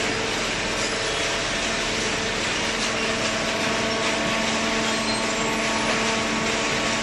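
Hydraulic cardboard baler's motor and pump running steadily, a continuous mechanical drone with a steady hum.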